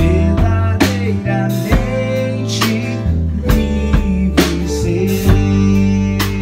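A band playing: guitar and drum kit over held bass notes, with a man singing into a microphone.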